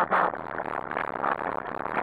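Dog-pulled dryland rig running fast over a rough forest dirt trail: a continuous rattle and rumble from the rig jolting over the ground, with a louder jolt just at the start.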